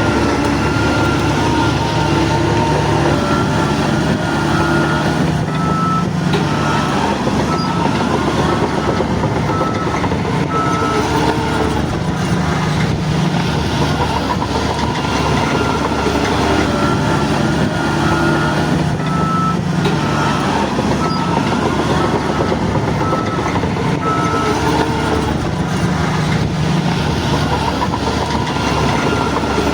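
Heavy diesel engine of a Shantui DH17 bulldozer running under load, its low note swelling every several seconds. A reversing alarm beeps about twice a second from about six seconds in until near the end.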